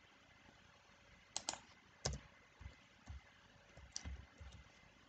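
Faint computer keyboard typing: a handful of separate, irregularly spaced keystrokes, starting about a second and a half in.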